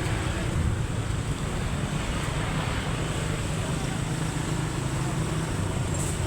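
Strong wind buffeting the microphone: a steady, low rumbling noise with a hiss over it.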